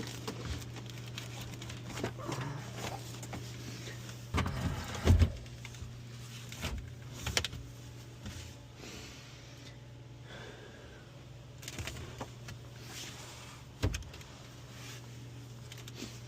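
Scattered knocks, clunks and rustles of hand work inside a car as a hybrid battery pack is settled into place, over a steady low hum. The loudest clunks come in a cluster about five seconds in, with another sharp knock near the end.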